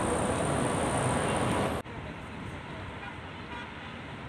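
Steady street traffic noise, cut off suddenly about two seconds in by quieter, even road noise heard from inside a moving car.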